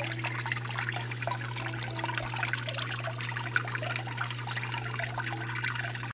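Water trickling over the surface of a Miller table during a gold clean-up, with a steady low hum underneath.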